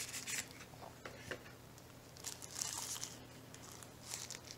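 Thin white packaging wrap crinkling and rustling as it is pulled and peeled off a plastic screwdriver-bit storage tube, in a few short bursts, the longest about two and a half seconds in.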